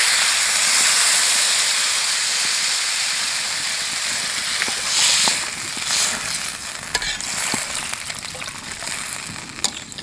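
Water poured into a hot karahi of fried potatoes and cauliflower hisses and sizzles loudly as it hits the pan, then slowly settles into a quieter simmering hiss. A few light clicks of a spoon stirring come in the second half.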